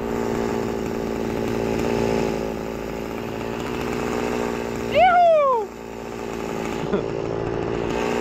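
Small two-stroke outboard motor (Toyama 3 hp, 60.2 cc) running steadily, pushing the kayak along while trolling. About five seconds in, a short, loud, falling whoop from a person rises over it.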